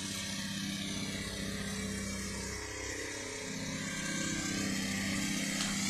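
Pressure washer engine running at a steady speed, a constant motor hum with a steady hiss over it.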